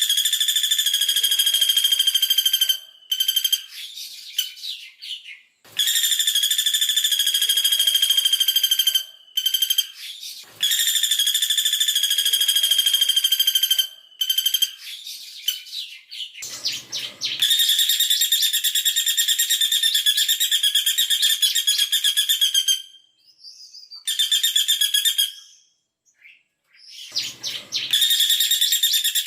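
Female caladi bawang woodpecker giving long, rapid, high-pitched rattling trills (the 'tembakan' call), several runs of a few seconds each with short breaks between them. Two brief low rumbles occur partway through.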